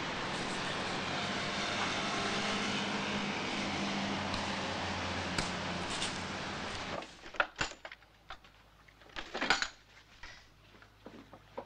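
Steady street traffic noise heard from high up outside a building. About seven seconds in it cuts to a quiet room, where a wooden drawer is pulled open and its contents are rummaged through: a string of sharp knocks and clicks, loudest about two seconds after the cut.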